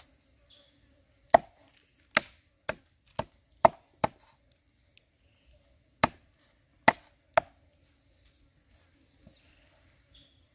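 Cleaver chopping glass noodles on a round wooden chopping block: sharp knocks, six in quick succession, a pause of about two seconds, then three more.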